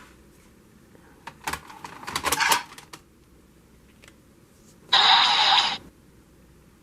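Custom Decadriver and K-Touch 21 transformation sound effects. A scattering of clicks runs into a quick flurry of sharp clicks and taps for about a second and a half. About five seconds in comes a loud, hissy burst lasting just under a second.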